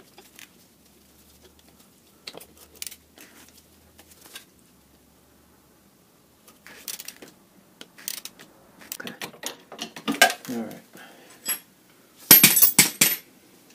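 Metal hand tools, a wrench and sockets, clinking and knocking against the motorcycle's steering-head hardware. Near the end comes a loud, brief metallic clatter as tools are put down.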